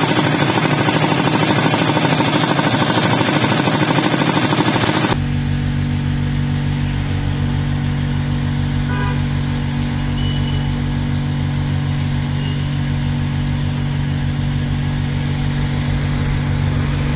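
Small diesel engine driving a mobile dewatering pump, running with a loud, fast clatter. About five seconds in, it cuts to the steadier, lower drone of a suction tanker's engine and vacuum pump drawing floodwater up a hose.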